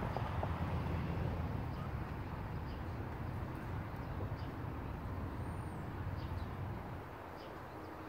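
Steady low outdoor rumble with faint, brief bird chirps now and then, one a short arched whistle about halfway through; the rumble eases a little near the end.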